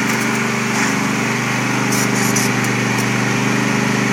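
Lawn mower engine running steadily at an even speed, with a few light clicks about two seconds in.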